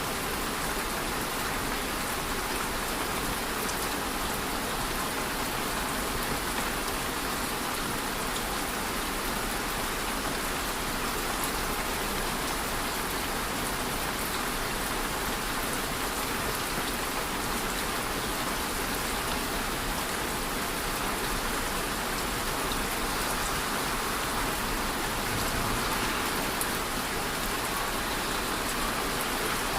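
Steady rain falling and pattering on a surface, an even hiss with no break or change.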